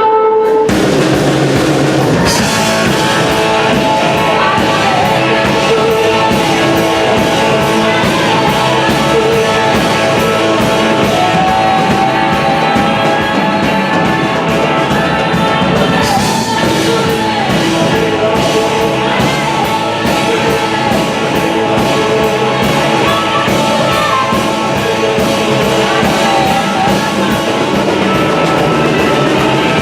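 Live blues-rock band playing a boogie with electric guitar and drum kit. The full band comes in about half a second in.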